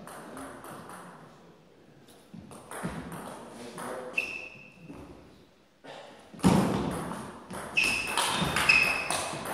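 A table tennis rally: the celluloid ball clicking off the rubber paddles and bouncing on the table in quick succession, the hits getting louder about two-thirds of the way in. Along with them come a few short, high squeaks of shoes on the court floor.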